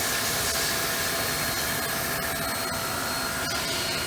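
Steady whirring hiss with faint high steady tones from a 2006 Milltronics VK2 CNC knee mill running a program with its spindle at 2200 RPM, mixed with workshop noise.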